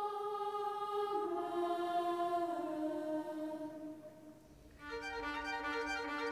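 Slow classical background music led by bowed strings: long held notes that step downward and fade about four seconds in, then a new passage of evenly pulsing repeated notes begins near the five-second mark.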